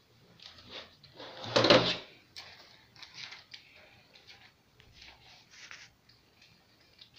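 Handling noise: a loud bump and rustle about a second and a half in, then a run of short rustles as the pages of a paper notebook are handled and turned.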